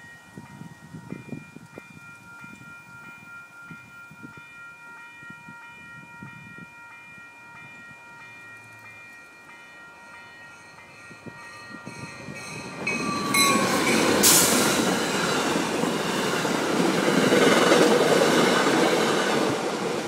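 Railroad crossing bell ringing steadily with the gates down, then an MBTA commuter train arrives about 13 seconds in and passes loudly through the crossing, with a sharp bang just after it arrives; the bell keeps ringing over the train noise.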